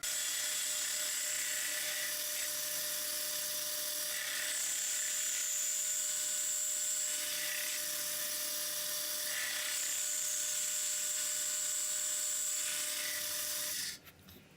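Lathe running steadily while turning a small wheel spacer, with a high whine rising over it twice for a few seconds each. It stops suddenly near the end.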